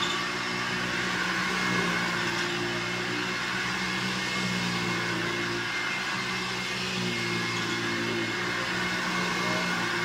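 1958 Hoover Junior 1334 upright vacuum cleaner running steadily as it is pushed back and forth over carpet. Its motor hum wavers slightly in pitch with the strokes.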